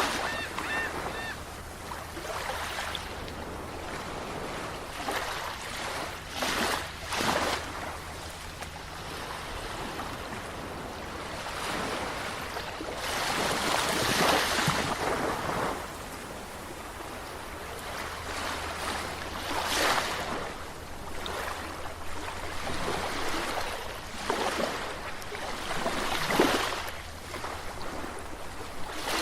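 Sea waves washing in and drawing back, a steady wash with louder surges every several seconds, the biggest about halfway through and near the end.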